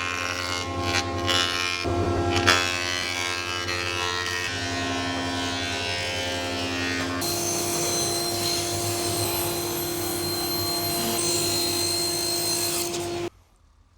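Electric power tool motors whining at steady pitches. The pitch jumps a few times, as one clip cuts to the next, and the sound cuts off abruptly near the end.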